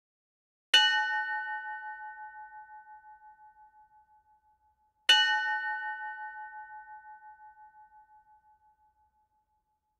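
A bell struck twice, about four seconds apart, each stroke ringing out and dying away slowly with a wavering hum.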